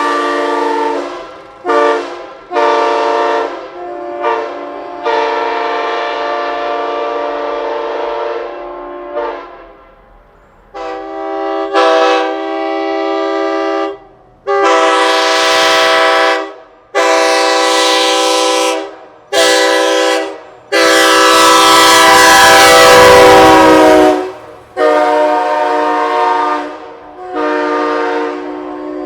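Truck-mounted Nathan AirChime K5LA Hybrid five-chime train horn sounding a steady chord in short toots and one long blast. About eleven seconds in, after a brief pause, a K5L five-chime horn takes over with a series of short and long blasts.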